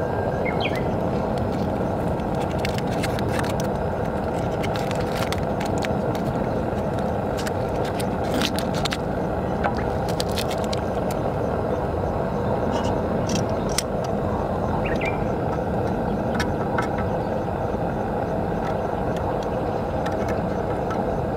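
Steady roar of a burner flame on high heat under an aluminium mess tin bringing water to the boil, with scattered light clicks and scrapes of utensils against the tin.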